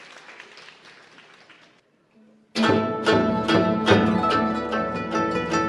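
Guzheng (Chinese zither) ensemble playing: quiet, rapid plucked notes for under two seconds, a brief pause, then a loud entry of fast, rhythmic plucking about two and a half seconds in.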